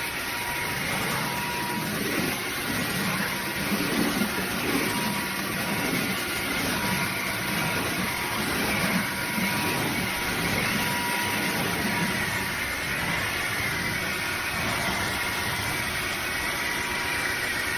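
Dreame H12 cordless wet-dry vacuum mop running steadily, a motor whir with a high whine that wavers slightly in pitch.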